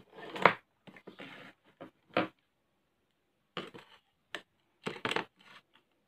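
Short metallic clicks and clatters as a phone motherboard with its metal shield is handled on a workbench, about seven in all, the loudest about half a second in.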